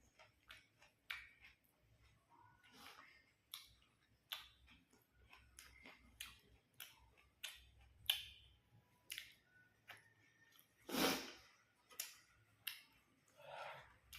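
Crunching and chewing of crisp food close to the microphone: a run of sharp, irregular crunches. Two longer, louder noises come near the end.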